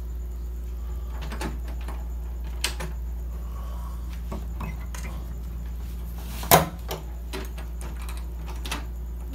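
Wooden door being handled and opened: scattered small clicks and knocks, with one loud knock about six and a half seconds in, over a steady low hum.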